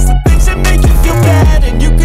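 Hip-hop backing music with deep, sustained bass notes.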